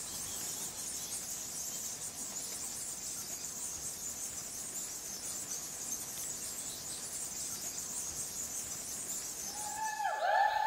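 Steady, high-pitched chorus of forest insects. Near the end, a series of pitched, swooping calls begins over it and repeats.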